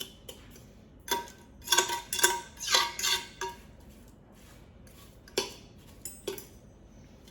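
Metal fork clinking and scraping against the Lomi composter's bucket while stirring through the finished compost: a quick run of ringing clinks in the first few seconds, then two single clinks later on.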